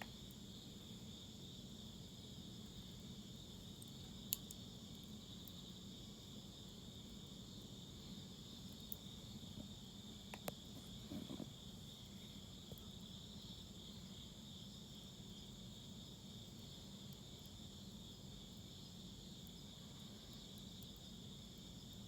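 Faint, steady chirring of insects, with a few sharp pops from burning firewood: one about four seconds in, and a few more about ten to eleven seconds in.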